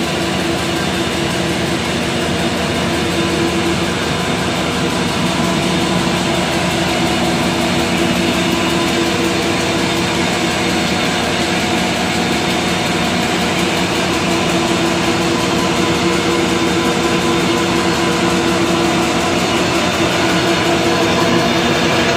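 Paper bag machine's four-colour flexo printing unit running at production speed, kraft paper web feeding over its rollers: a loud, steady mechanical running noise with a constant low hum.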